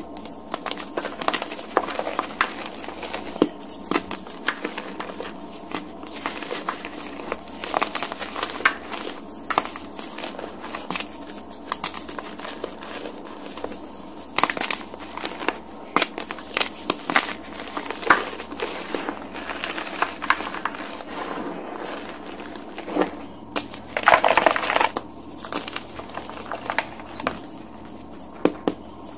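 Dyed gym chalk blocks crushed and crumbled between fingers: many crisp, irregular crunches and crackles, with a denser, louder run of crunching about five seconds before the end.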